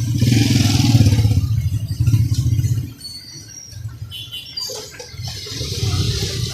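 Street traffic, a motor vehicle engine running loud and close for about the first three seconds, then dropping to a fainter rumble.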